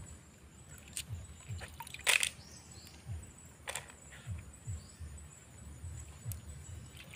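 Light splashes and sharp little clicks of a hand picking freshwater snails off a shallow, pebbly creek bed, over a faint low rumble. The loudest is a short splash about two seconds in.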